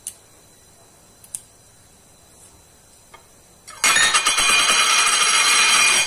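A couple of faint clicks, then a loud harsh scraping noise of about two seconds that starts about four seconds in and stops abruptly.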